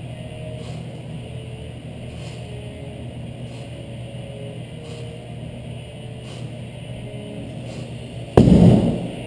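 A heavy 145 lb dumbbell set down hard onto the rubber gym floor near the end: one sudden, loud, deep thud, over a steady low hum.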